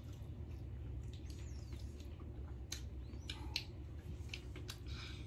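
Child sipping water from a plastic bottle with a straw lid: faint sips with small squeaks and clicks over a steady low hum.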